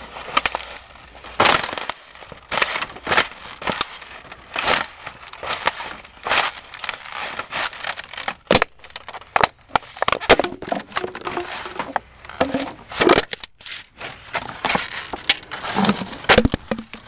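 Leather boots stomping on and crushing fast-food garbage (clear plastic cups and paper containers): a long run of irregular crunches and crackles as the plastic cracks and the paper crumples, several of them loud stomps.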